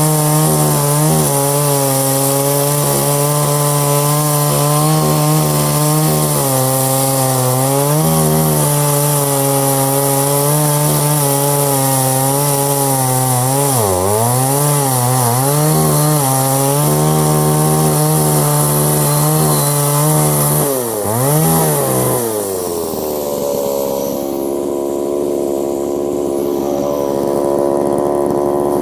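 Poulan 3400 two-stroke chainsaw with a 20-inch bar running at full throttle through wood, its pitch wavering and dipping twice as the chain bogs in the cut. About 22 seconds in it drops back to a steady idle.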